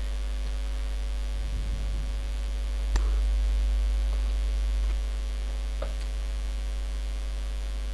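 Steady low electrical mains hum on the recording, with a single click about three seconds in and the hum a little louder for the next two seconds.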